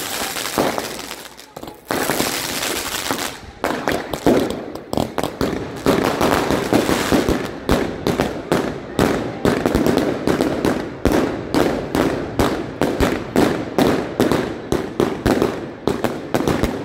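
Fireworks going off close by: a dense crackle and hiss of sparks for the first few seconds, then a steady run of sharp bangs, about two or three a second.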